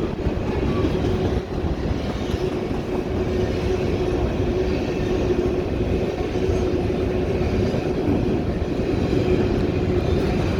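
Cars of a long freight train rolling steadily past, wheels running on the rails, with a steady tone running underneath.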